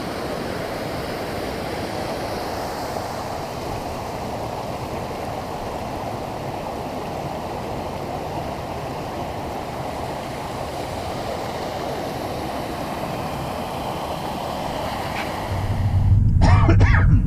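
Steady rush of a waterfall cascade, an even, unchanging wash of water noise. Near the end it switches to the louder, low rumble of a car driving, heard from inside the cabin, with a voice over it.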